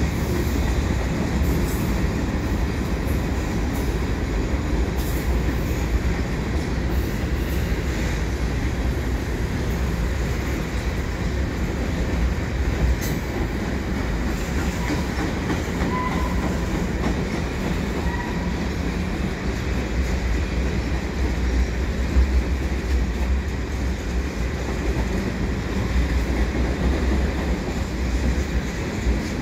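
Canadian Pacific mixed freight train's cars rolling past, a steady rumble of steel wheels on rail with a couple of faint, short wheel squeals near the middle.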